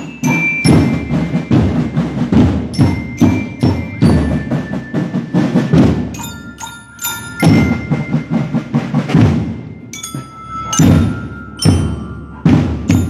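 School marching band (banda de paz) playing in procession: drums beat a steady marching rhythm while bell lyres ring out a high melody over them.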